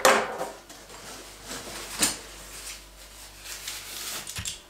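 Metal tri-clamps clinking and clanking as they are handled and set down one at a time: a sharp clank at the start, another about two seconds in, and lighter handling noises between.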